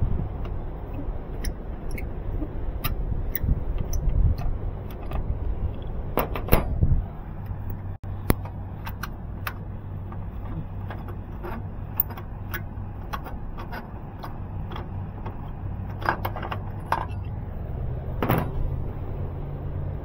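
Scattered light clicks and knocks of handling over a steady low hum, with a louder clatter near the end as a toolless sheet-metal access panel on a York rooftop unit is pulled open.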